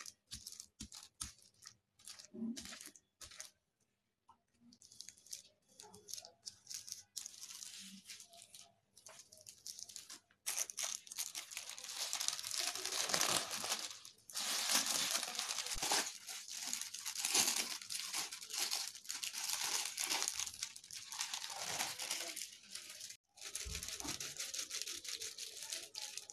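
Thin polythene sheet crinkling and rustling as it is pressed and handled during the rolling out of a potato papad. Scattered short crackles for about the first ten seconds, then dense, steady crinkling.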